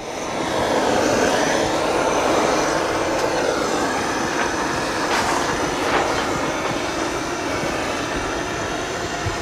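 Handheld propane torch burning with a steady roar as it heats a vinyl boat wrap, setting the wrap's heat-activated adhesive. The roar swells up over the first second, then holds.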